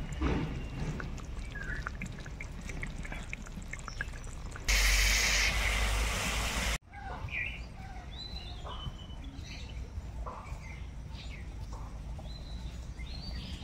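Chicken frying in a karahi, with a loud hiss of sizzling for about two seconds midway that cuts off sharply. Birds chirp afterwards.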